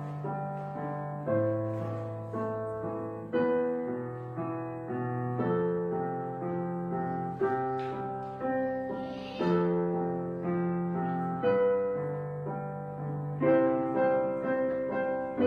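Background piano music: soft chords struck about once a second, each fading before the next.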